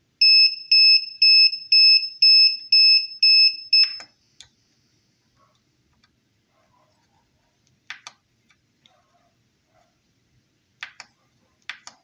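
Electronic buzzer of a grill temperature controller beeping loudly, about eight high beeps at two a second, stopping about four seconds in: the alarm that sounds when the probe temperature reaches the set limit. A few faint clicks follow as the control knob is worked.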